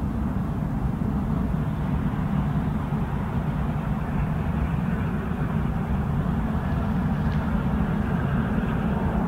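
Boeing 787-9's Rolls-Royce Trent 1000 jet engines running at low power as the airliner rolls out along the runway after landing: a steady low rumble.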